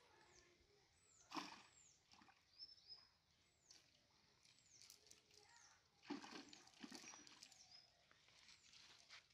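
Faint rustling and scuffing of a wet cast net being handled as fish are picked out of it. The handling is loudest about a second and a half in and again around six seconds. Behind it, a bird's high, short falling call repeats about every half second.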